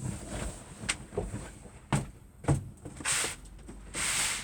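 Knocks and bumps from someone moving about inside a van, three sharp knocks in the first half, then two short rushing swishes near the end.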